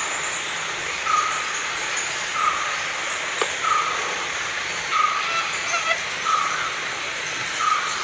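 Fiery-billed aracari calling: a short, sharp note repeated about once a second, sometimes doubled, over a steady high hiss of forest background.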